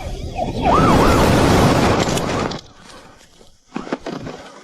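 Police siren wailing in quick rising-and-falling sweeps over a loud rush of noise, cutting off after about two and a half seconds.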